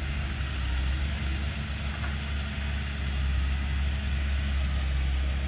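Heavy diesel engine running steadily, with a deep, even hum and no change in speed.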